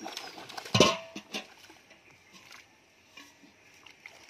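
Water splashing in a shallow pond as fish jump against a hauled drag net: one loud splash about a second in, then a few smaller splashes.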